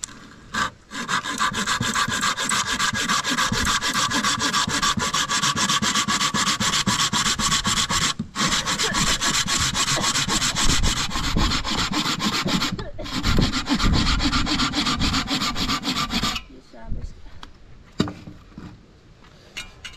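Abrasive rubbing made of many rapid strokes, like sanding or rasping. It starts about a second in, breaks off briefly twice and stops about sixteen seconds in.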